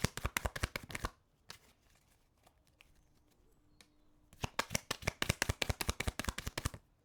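A deck of tarot cards being shuffled by hand: two bouts of rapid card clicking and flicking, the first stopping about a second in and the second starting a little after four seconds and lasting about two seconds.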